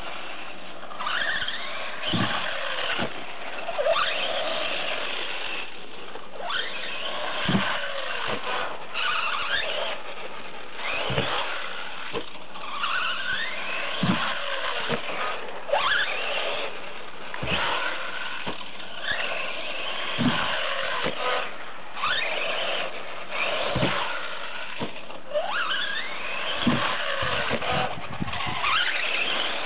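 HPI Vorza brushless 1/8 RC buggy on 4S LiPo power, its electric motor whining up in pitch again and again as it accelerates hard. Sharp thuds come every few seconds as the buggy lands off jumps and hits the ground.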